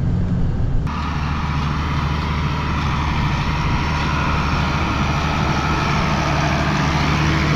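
Diesel pickup truck engine running steadily with a low hum; about a second in, a steady hiss comes up over it.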